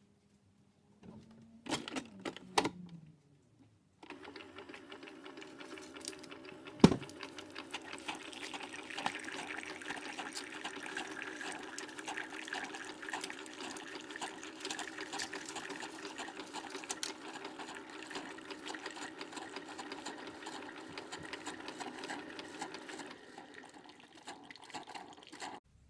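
Keurig 2.0 single-serve brewer: a few clicks about two seconds in, then its pump starts up with a steady buzz and hot water streams into a mug for about twenty seconds, with one sharp click near seven seconds in. The flow stops just before the end.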